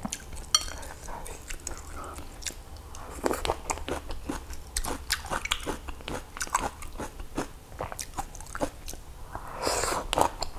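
Close-miked eating: chewing with many small wet clicks, and chopsticks tapping in a glass soup bowl. Near the end comes a denser noisy stretch as a small bowl is lifted to the mouth, a sip or slurp of soup.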